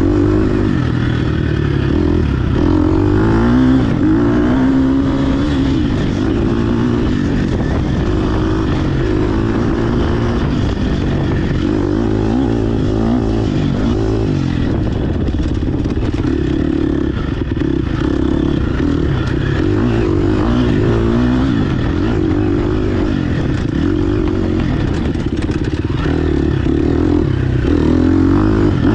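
GasGas EX 250F four-stroke single-cylinder dirt bike engine under way, its note rising and falling again and again as the throttle is worked, over a steady rattle and rush of the ride.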